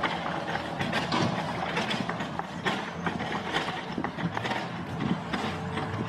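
Clay paving bricks clacking against each other as they are picked from a stack and set down in quick succession, an irregular run of sharp knocks several times a second.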